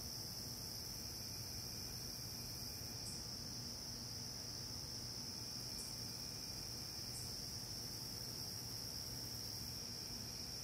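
Night insects trilling in one steady, unbroken high-pitched drone, with a few faint short higher chirps mixed in.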